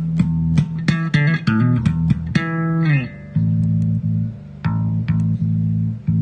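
Electric bass guitar played through a Zoom MultiStomp MS-60B effects pedal. A quick run of plucked notes ends in a slide down in pitch about three seconds in, followed by longer held low notes restruck every half second or so.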